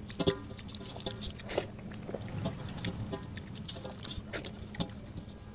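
Bare fingers mixing and squishing rice with dal on a metal plate. Irregular soft wet squelches and small clicks come from fingertips pressing the rice against the plate.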